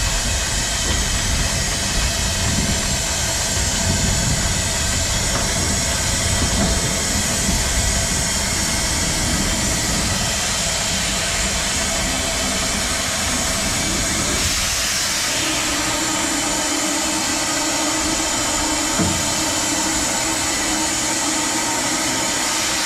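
Steam hissing steadily in the cab of a vertical-boilered steam shunting locomotive as the steam heat valve is opened gently. About two-thirds of the way in, the low rumble drops away and a steady low hum comes in under the hiss.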